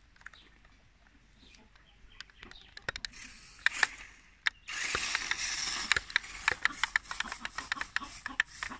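Remote-control rock-crawler car driving over gravel: a run of sharp clicks and rattles from its gears and tyres on the stones, with a dense grinding hiss from about five to six seconds in as it speeds away.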